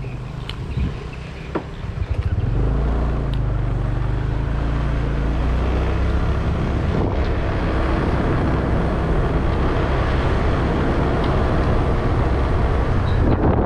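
A small motorbike engine pulls away about two seconds in and then runs steadily under way, with a rush of wind over it.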